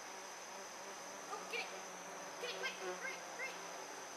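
Insects droning steadily at a high pitch, with a few short, falling high-pitched calls in the second half.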